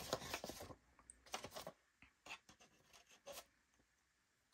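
Faint rustling of plain paper sheets being laid and slid into a printer's plastic paper cassette, with a few light taps from the tray, mostly in the first couple of seconds.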